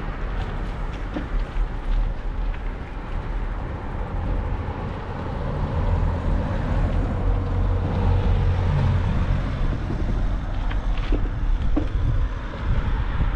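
Outdoor street ambience recorded from a moving bicycle: a low rumble of road traffic mixed with wind on the microphone, swelling louder through the middle.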